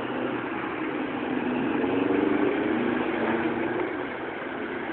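A motor vehicle's engine running steadily, a little louder about halfway through.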